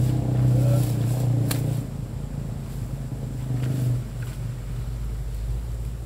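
An engine running at a steady pitch, a low hum that is loudest for the first two seconds and fades after about four; a sharp click about a second and a half in.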